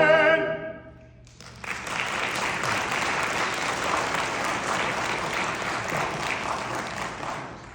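A choir's held final chord dies away, then after a brief pause an audience applauds for about six seconds before it fades out.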